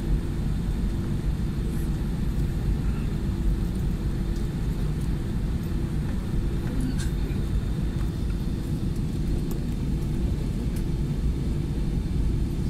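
Airbus A320-200 cabin noise while the aircraft taxis: a steady low rumble from the idling engines and the rolling airframe, with a constant hum.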